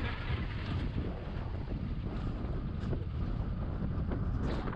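Car driving over a rough dirt road: wind buffeting the microphone over a low, steady rumble of tyres and engine.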